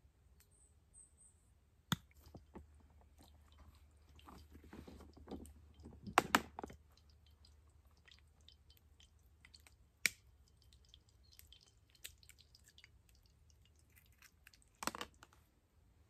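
Quiet camp-cooking handling sounds beside a small wood fire: scattered clicks and small crackles, with a louder crunching rustle about six seconds in and single sharp clicks now and then.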